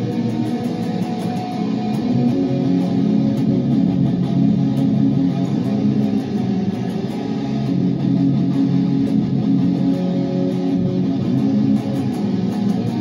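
Jackson seven-string electric guitar playing sustained, distorted chords, steady and loud, the notes changing every second or so.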